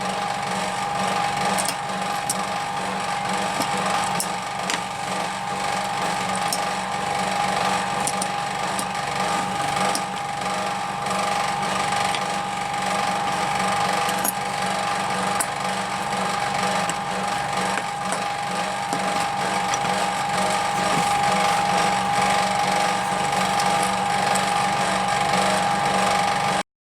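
A small power tool running steadily with a constant high whine, with light scraping and ticking from the work. It cuts off abruptly near the end.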